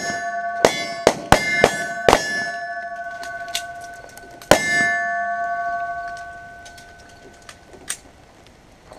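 A quick string of pistol shots, four in the first two and a half seconds and one more about halfway through. Each hit sets steel targets ringing with a clear, sustained tone that slowly fades out over the following few seconds, with a couple of fainter pops in between and near the end.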